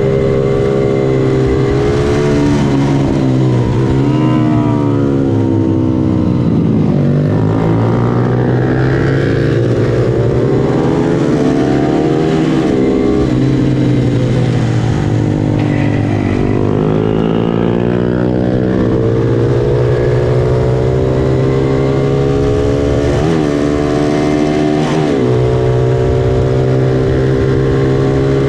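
Honda NSF100 mini racing motorcycle's four-stroke single-cylinder engine running hard on track. Its pitch repeatedly drops as the bike slows for corners, then climbs again as it accelerates.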